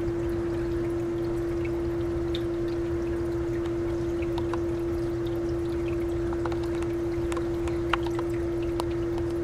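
Continuous running, trickling water under a constant hum held on one pitch, with a few faint clicks in the second half.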